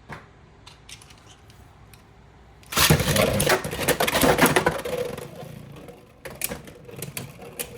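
Beyblade X tops launched into a plastic stadium: a sudden loud whirring rush of spinning about a third of the way in, fading into sharp clicking clashes as the tops hit each other near the end.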